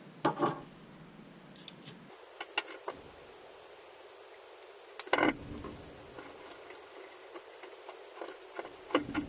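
Scattered clicks and light knocks from hands handling a heat-shrink-covered coax cable on a workbench, with the loudest knock about five seconds in.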